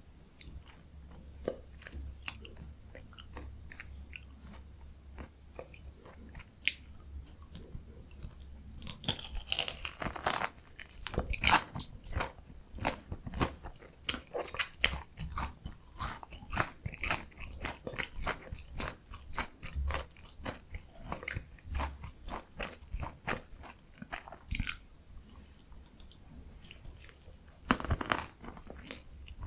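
Close-miked eating of a potato mozzarella corn dog: crisp crunching from the fried potato-studded coating, with chewing. It is softer for the first several seconds; a loud crunchy bite comes about nine seconds in, then dense crackly chewing, and another loud bite near the end.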